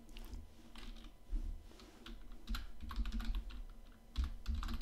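Typing on a computer keyboard: irregular key clicks, a few at a time, coming more often in the second half.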